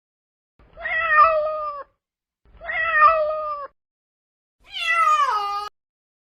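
Kitten meowing three times, each meow about a second long with a short pause between. The last meow starts higher and falls in pitch.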